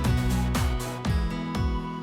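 Background music with a steady beat and a plucked, guitar-like melody.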